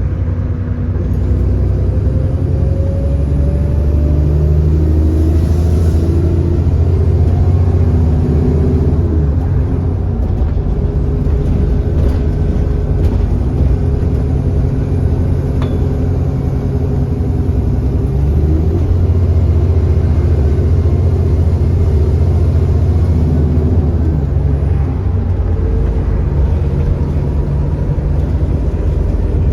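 Cummins ISB 6.7-litre diesel engine of an Alexander Dennis Enviro400 bus running under load. The engine note climbs and then drops back a few times as the ZF Ecolife automatic gearbox changes gear. The bus has an exhaust leak.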